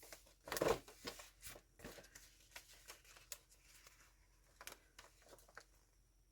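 Paper pages of a handmade junk journal rustling and being turned: a run of soft crinkles and light taps, loudest about half a second in and dying away near the end.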